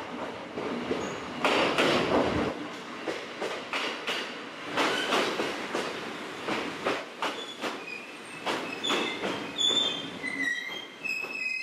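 Former Narita Express electric train (JR 253 series, now Nagano Electric Railway's Snow Monkey) pulling into a station past the platform. Its wheels clack irregularly over the rail joints, then about ten seconds in a high, steady wheel squeal sets in as it slows to a stop.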